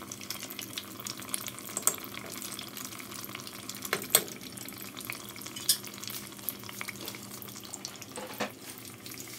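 Hot oil sizzling steadily around mini martabak pastries deep-frying in a pot, with a few sharp clicks, the loudest about four seconds in.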